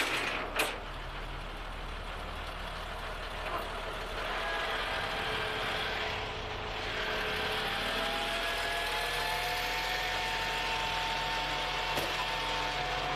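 Rollback tow truck's engine running steadily. About four seconds in, a whine joins it and climbs slowly in pitch as the hydraulic flatbed is worked.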